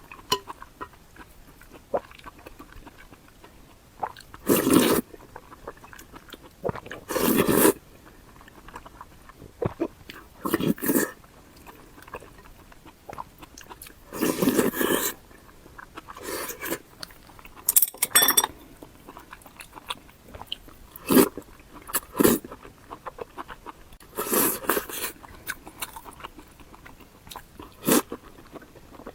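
Close-miked eating: a dozen or so separate bouts of crunchy biting and chewing, each up to about a second long, with short pauses between.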